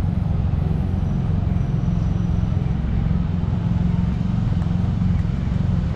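Steady city street noise: a continuous deep rumble with an even hiss above it, with no distinct events.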